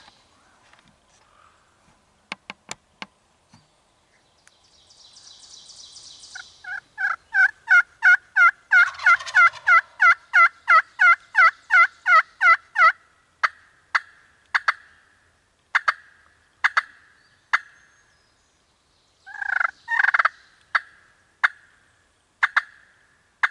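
Wild turkey calling: a long run of yelps, about three a second, then scattered sharp notes and a short, louder burst near the end, a gobble.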